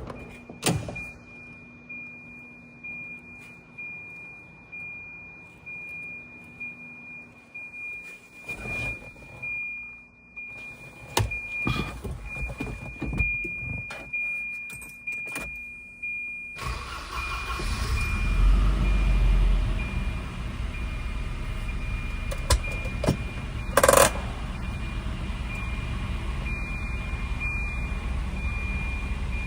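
Keys jangling and clicks from a 1989 Volvo 240 wagon, with a steady high-pitched tone behind them. About halfway through, the engine cranks, catches with a burst of low rumble, and settles into a steady idle.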